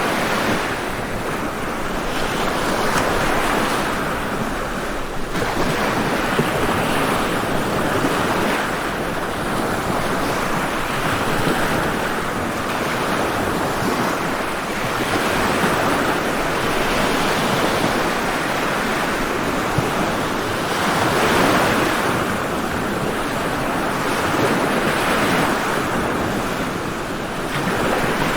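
Sea waves breaking and washing ashore, a continuous rush of surf that swells and eases every few seconds.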